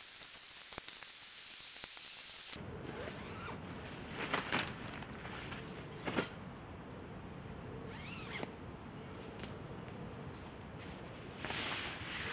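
A steady hiss for about two and a half seconds, then the handling noise of a tarp and bivvy shelter being pitched: nylon fabric rustling, footsteps in dry leaf litter, and several short rasping strokes.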